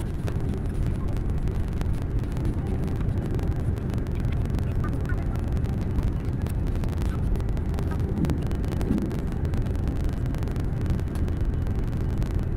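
Steady low cabin rumble of an Airbus A330-300 taxiing, from its Rolls-Royce Trent 700 engines and the wheels rolling over the wet taxiway, with a few faint clicks.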